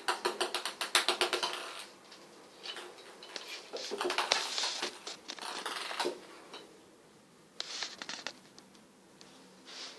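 Ping-pong ball bouncing and skittering across a bathtub as kittens bat at it: a fast run of light clicks in the first two seconds, then further bursts of clicking and paw scrabbling on the tub's surface around the middle and near the end.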